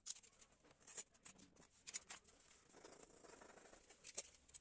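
Faint scratching, rustling and a few light clicks of hands pressing and smoothing tape along the hinge line of a foam tail surface.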